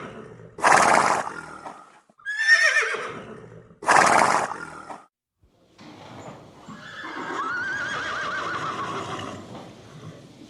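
Horse neighing, each neigh followed by a loud breathy rush of air. The pair comes twice, the same both times. After a brief gap there is a quieter, longer whinny that wavers in pitch.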